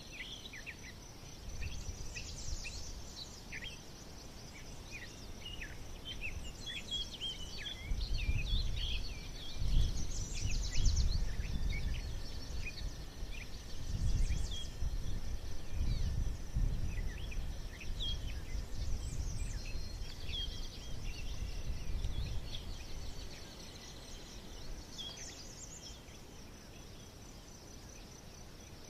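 Many birds chirping and singing in short, quick calls, over a steady high insect drone. From about a third of the way in until near the end a low rumble swells and fades in waves, loudest about ten seconds in.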